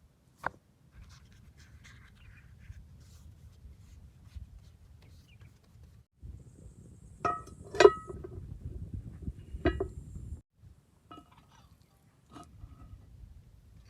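Cooking utensils clinking and knocking against metal cookware, with about six sharp clinks spread out and two loud ones close together about eight seconds in, over a low, uneven rumble.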